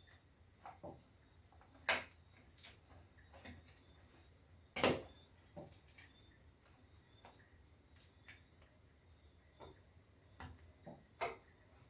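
Scattered small clicks and taps of hand tools and wire being handled while a neutral wire is connected to its terminal, with one louder knock about five seconds in.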